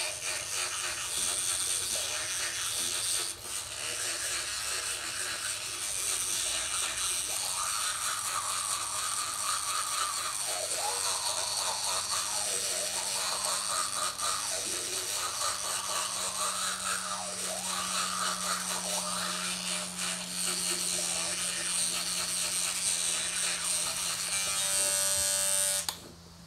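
Electric toothbrush buzzing while teeth are brushed, its tone shifting as the head moves around inside the mouth. It is switched off and cuts out suddenly near the end.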